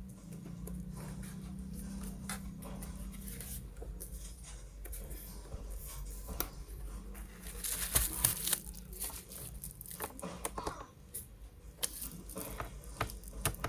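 Irregular rustling and sharp clicks of objects being handled, with a dense cluster of louder clicks about eight seconds in and a low hum during the first few seconds.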